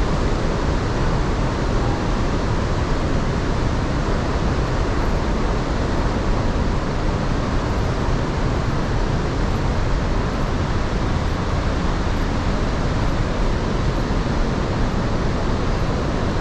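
Iguazu Falls: a steady, loud rush of falling water, an even noise with no letup.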